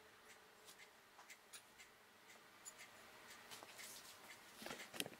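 Faint clicks and light scratching of metal cookie cutters being pressed into rolled-out cookie dough and set down on the counter, with a slightly louder cluster of clicks near the end.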